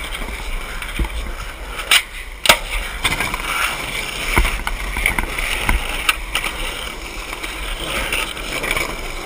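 Skateboard wheels rolling over rough asphalt with a steady rumble, broken by several sharp clacks of the board hitting the ground, the loudest about two and a half seconds and four and a half seconds in.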